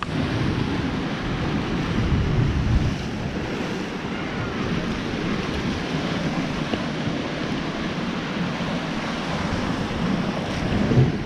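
Sea waves breaking and washing against shore rocks, a steady rush with a deep rumble, with wind buffeting the microphone. It swells slightly about two seconds in and again near the end.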